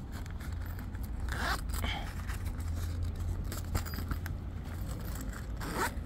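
A tent zipper is pulled twice in short rasping runs, once about a second and a half in and again near the end, over a steady low rumble.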